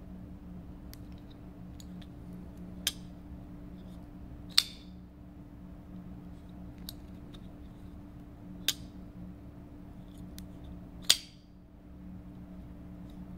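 Thorburn L44 flipper folding knife flicked open and shut: four sharp metallic clicks as the blade snaps open and locks or is released, the two loudest with a brief ringing, and fainter ticks between them. A steady low hum runs underneath.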